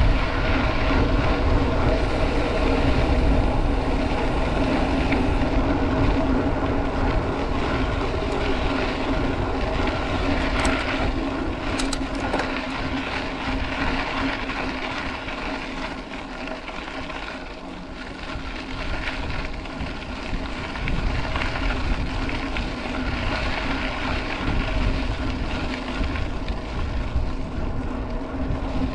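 Mountain-bike riding noise: wind rumbling on the microphone and tyres rolling on a dirt road, a steady hum with a few faint clicks, easing a little about halfway through.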